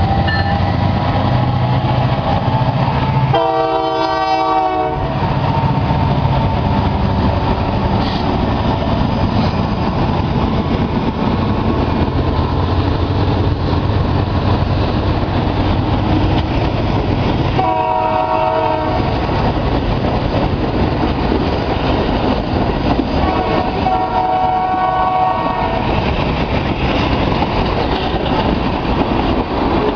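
Model diesel locomotives' onboard sound systems: a steady diesel engine rumble mixed with wheel noise on the track, and three horn blasts — one about three seconds in, one about eighteen seconds in, and a fainter, longer one around twenty-four seconds.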